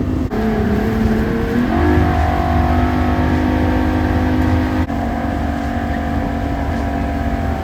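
Motorboat engine running at speed while towing a tube, its pitch rising as it speeds up about two seconds in and then holding steady.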